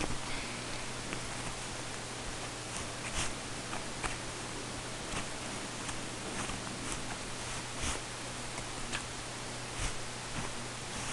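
Steady recording hiss and low hum, with scattered faint ticks and rustles at irregular moments: a kitten's claws catching and pawing on a fabric bed as it plays.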